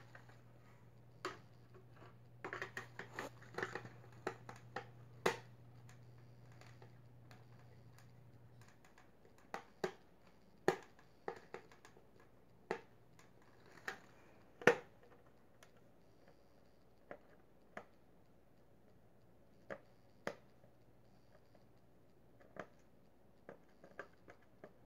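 Irregular small clicks, taps and scrapes as a screw is worked out of the plastic display base holding a diecast car, a stiff job with the screw only just loosening.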